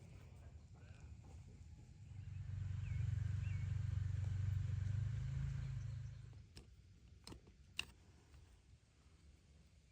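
A low rumble swelling and fading over about four seconds, like a vehicle passing by. Two faint short chirps sound near the loudest part, and a few sharp clicks follow near the end.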